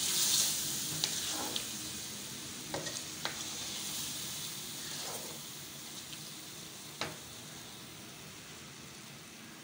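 Chicken pieces sizzling in hot oil and masala in a metal karahi as a spatula stirs them, with a few sharp clicks of the spatula against the pan. The sizzle swells briefly at the start, then slowly dies down.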